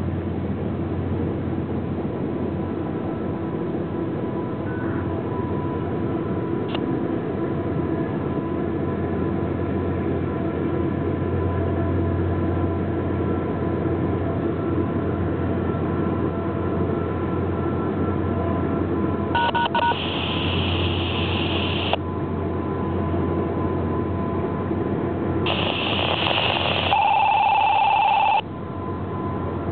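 Distant freight train heard across a river: a steady rumble from the locomotives and rolling cars, with two horn blasts of about three seconds each, the first roughly twenty seconds in and the second, louder one near the end.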